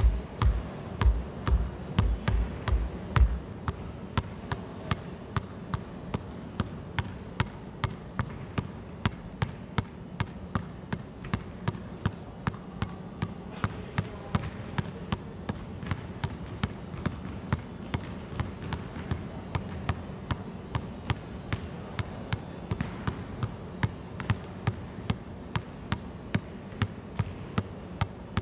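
Basketball dribbled on a hardwood gym floor in a steady, even rhythm of about three bounces a second.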